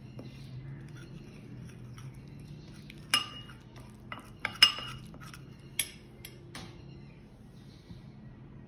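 Metal spoon stirring a thin flour paste in a ceramic bowl and clinking against the bowl about seven times near the middle, the loudest clink a little past halfway.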